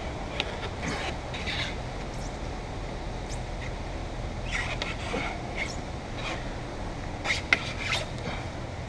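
Glass-removal tools scraping and clicking against the roof glass and its urethane glue, in scattered short strokes, with a sharp click about seven and a half seconds in, over a steady low hum.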